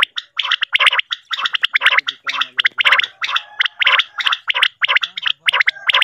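Common quail calling: a rapid, loud run of short sharp notes repeated several times a second, the kind of lure recording played to draw quail into nets.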